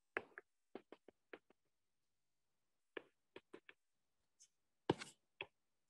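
Faint, short taps and clicks of a stylus on a tablet's glass screen during handwriting, about a dozen, in small clusters with near silence between them.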